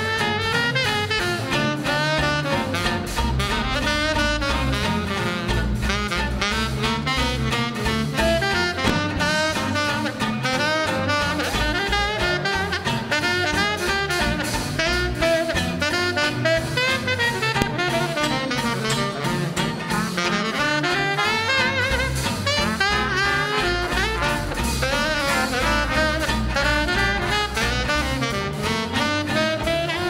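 Live swing jazz: a saxophone takes the lead melody over an upright double bass and drums keeping a steady beat.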